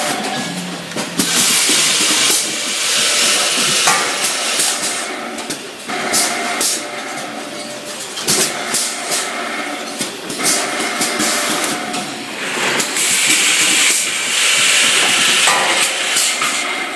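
Automatic drilling and tapping machine working brass pressure-gauge parts: motors run while pneumatic cylinders let off air in repeated loud hisses. Sharp clicks and knocks come from the moving fixtures.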